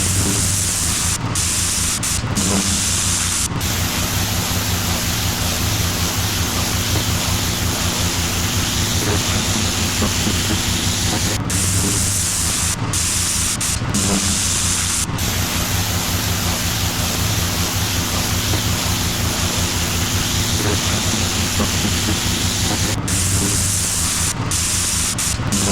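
Gas-engine pressure washer running steadily, with the loud hiss of its high-pressure water spray on concrete, broken by brief dips now and then.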